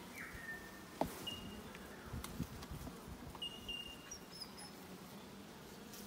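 Honeybees buzzing in an open hive super, a steady hum, with a sharp knock about a second in and a few short bird chirps.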